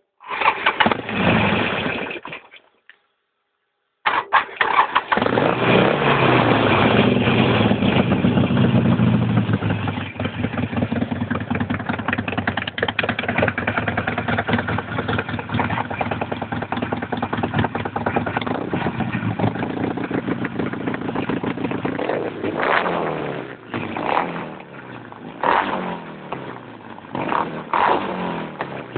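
Harley-Davidson Nightster's 1200 cc air-cooled V-twin: a short burst of engine sound, a gap of silence, then the engine starts about four seconds in and runs at a fast idle that settles into a steady idle. Several quick throttle blips come near the end.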